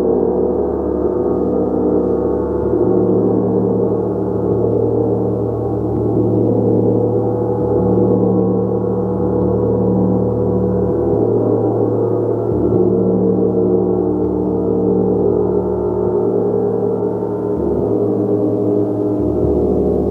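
A large gong, kept sounding with soft repeated playing, making a dense, steady wash of overlapping tones. The deep lowest tones swell and change every few seconds.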